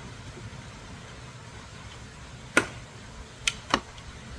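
Three sharp plastic clicks as the snap-in tabs around a steering wheel's back cover are pried loose: the loudest about two and a half seconds in, then two close together near the end. A steady low hum runs underneath.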